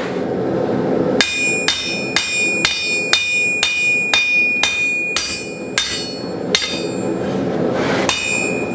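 Hammer blows on a still-hot steel scroll laid on an anvil, flattening it: about a dozen ringing strikes at roughly two a second, slowing near the end with a last blow after a short pause, over a steady background noise.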